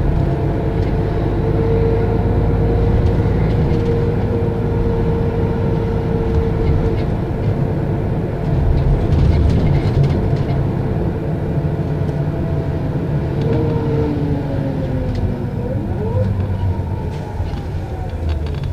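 Mercedes-Benz O 550 Integro bus with a ZF Ecomat five-speed automatic gearbox running: a steady low engine drone with a whining tone. Near the end, whining tones glide up and down in pitch.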